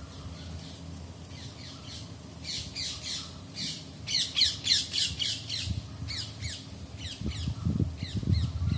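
A bird calling in rapid bouts of sharp, high squawks, each falling quickly in pitch, several a second, loudest around the middle. Low thuds come in near the end.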